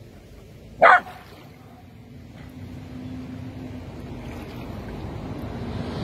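A dog gives one short, sharp bark about a second in, followed by wind and water noise that grows louder toward the end.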